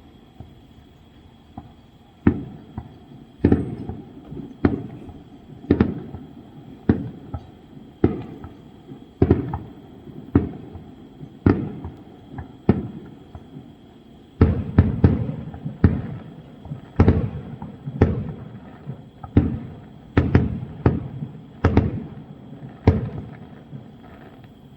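Aerial fireworks shells bursting one after another, each bang sharp and fading away, about one a second. There is a quicker flurry of bangs just past halfway.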